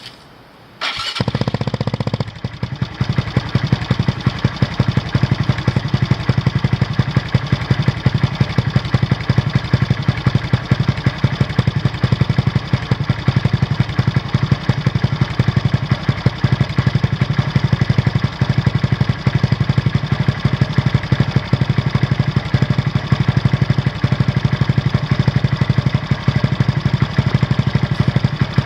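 Honda MSX125's single-cylinder four-stroke engine, fitted with an Arrow X-Kone exhaust, starting about a second in and then idling steadily.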